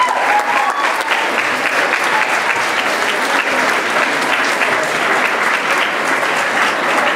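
Large audience applauding steadily, with a few cheers in the first second.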